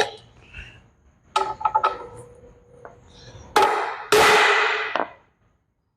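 Hammer blows on steel as a U-joint part is driven further into the driveshaft yoke: three quick taps a little over a second in, then two harder, louder blows near the end. Each strike leaves a metallic ringing.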